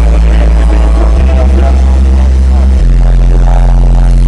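Loud live band music through a concert PA, distorted in the recording. The drums drop out while deep bass notes are held, changing pitch twice.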